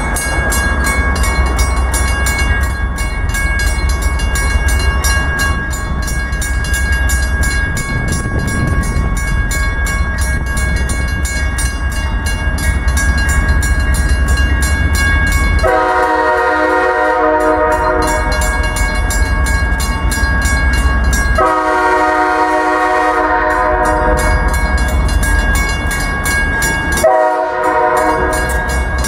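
Grade-crossing bell ringing steadily over the low rumble of an approaching CSX diesel freight train. The locomotive's multi-chime air horn sounds two long blasts, just past halfway and again about two-thirds of the way in, then a short blast near the end: the grade-crossing horn signal.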